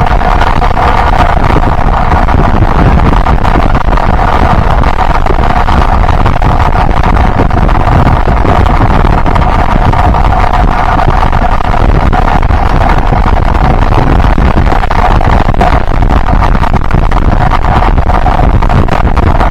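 Yamaha Byson motorcycle's single-cylinder engine running steadily while riding, with wind noise on the microphone.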